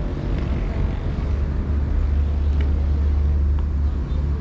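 A low, steady outdoor rumble, with a couple of faint clicks.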